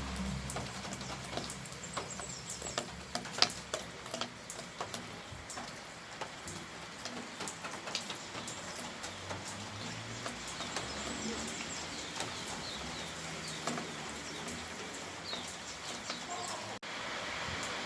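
Rain falling, with many separate drops pattering and dripping close by over a steady hiss, and a few faint bird chirps. About a second before the end the sound drops out for a moment and comes back as a smoother, steadier rain hiss.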